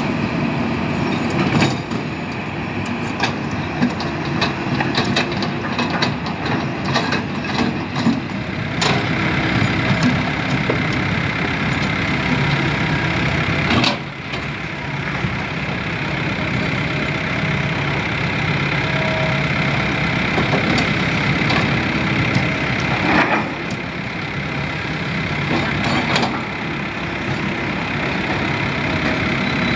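Diesel engines of Kobelco hydraulic excavators running steadily under load while digging dredged mud and soil. A run of metallic clanks and knocks comes in the first several seconds, with single sharp knocks about halfway and again about two-thirds through.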